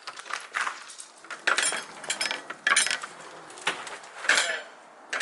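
Hard objects clinking and clattering irregularly as someone rummages through them and handles them. The loudest clatters come in a cluster in the middle and once more near the end.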